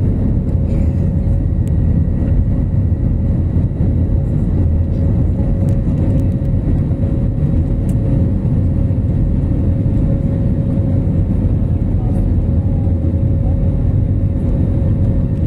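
Jet airliner cabin noise during the climb after takeoff: a loud, steady rumble of engines and rushing air, with a steady hum running through it.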